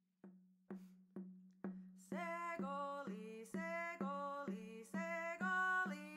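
Intro music: a steady low drone under a few sharp, quickly fading plucked notes, then a melody of held notes that changes pitch about twice a second from about two seconds in.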